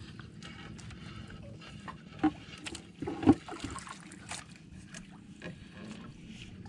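Water lapping and trickling around a small outrigger boat while longline is hauled in by hand, with small clicks and two sharp knocks against the boat about two and three seconds in, the second louder.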